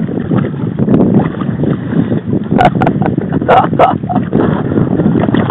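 River water splashing and rushing around a kayak's bow as it is paddled downstream behind canoes, with wind buffeting the microphone. A few sharp knocks come a little past halfway.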